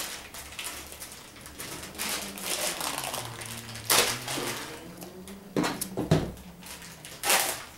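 Clear plastic packaging bag being handled and pulled apart by hand, crinkling, with a few sharp rips and knocks, the loudest about six seconds in.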